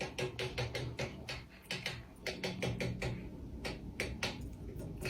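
Irregular light taps and clicks, a few a second, over a low steady hum.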